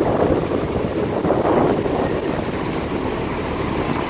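Wind rushing over the microphone of a moving vehicle, mixed with road and traffic noise from the motorcycles and truck around it.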